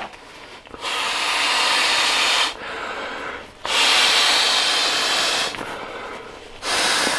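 Green camp pillow being blown up by mouth: three long breaths of air rushing into it, with short pauses between them, the second breath the loudest.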